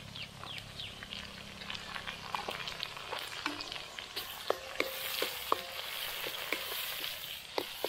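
Chopped shallots and tomatoes frying in sesame oil in a pan: a steady sizzle full of sharp crackles and spattering pops, a few of them louder about halfway through.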